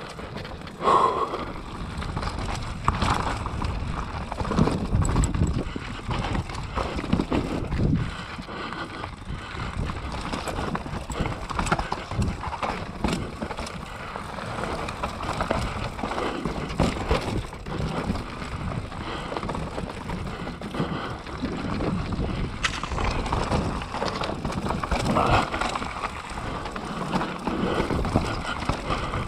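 Mountain bike riding down a rough dirt trail: tyres rolling over dirt and rocks, with irregular knocks and rattles from the bike over bumps.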